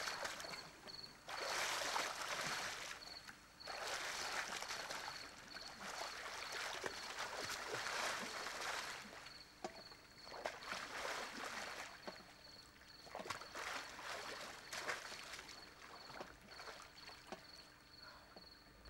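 Pool water splashing and sloshing as a swimmer surfaces from a head-first dive and swims. The splashing comes in loud rushes for the first half, then dies down to quieter lapping.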